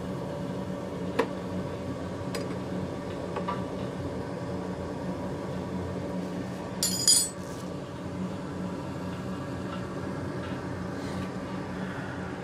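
Oilon oil burner running with a steady hum, its fan and pump going after start-up. A few light clicks, and about seven seconds in a short, loud metallic clinking, like tools being handled.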